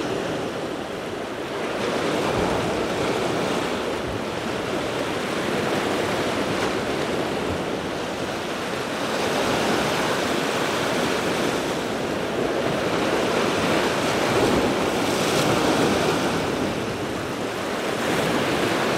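Ocean surf washing and breaking against the rocks below, a steady rush of water that swells and eases every few seconds.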